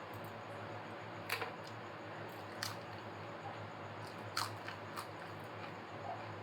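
Close-up eating sounds of biryani being chewed: a few short, sharp mouth clicks and crunches spaced about a second apart over a steady low hum.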